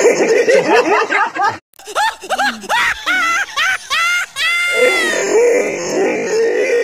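A high voice in quick rising-and-falling cries with music, ending in one long falling note about four and a half seconds in, followed by lower wavering vocal sound.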